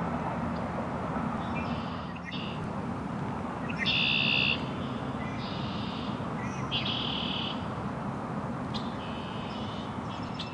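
Red-winged blackbirds singing: about six short, buzzy, trilled songs, the loudest about four seconds in, over a steady low background hum.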